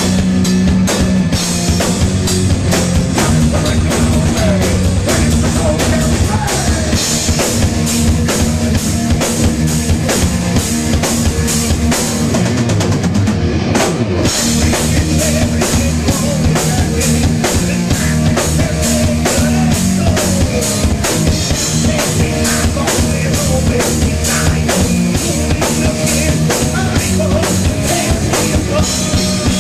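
Heavy metal band playing live: fast, dense drumming with heavy bass drum, distorted guitar and bass holding low notes, and lead vocals sung over it. The cymbals drop out briefly about halfway through.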